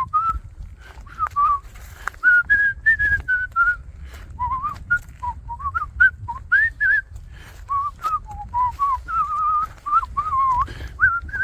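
A person whistling a wandering tune close to the microphone, pitch gliding up and down in short phrases. Irregular clicks and a low rumble run underneath.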